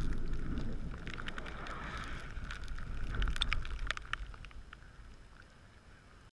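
Wind-like rushing noise from spray on a camera whose lens is coated in liquid, with scattered sharp taps around three to four seconds in. It fades steadily, then cuts off.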